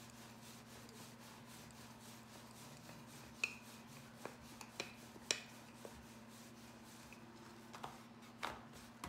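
Wooden rolling pin rolling out pizza dough on a floured wooden board: faint rubbing with a few light knocks of the pin and dough against the board, over a steady low hum.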